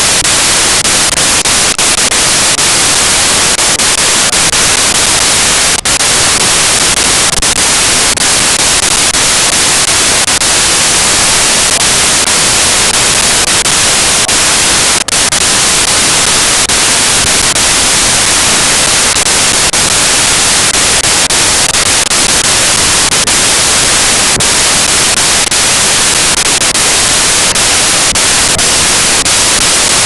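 Loud, steady static hiss like white noise, spread evenly from low to high pitch, with a few faint clicks. It is a recording fault rather than a sound at the scene: the audio has broken up into noise.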